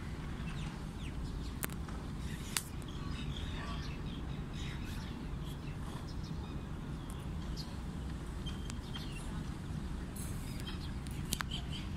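Open-air ambience: a steady low rumble with scattered small bird chirps and a few sharp clicks.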